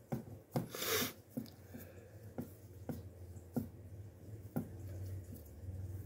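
Fingers pressing pie dough into a pie dish: faint soft taps and light knocks every half second to a second, with a brief breathy rustle about a second in, over a low steady hum.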